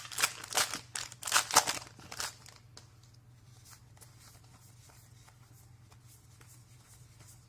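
A foil Magic: The Gathering booster pack wrapper being torn open and crinkled, loud and rustling for the first two seconds or so. After that it drops to near quiet with faint small ticks.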